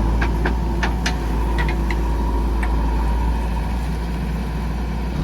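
Heavy diesel engine running steadily, with several short sharp clicks and knocks in the first three seconds.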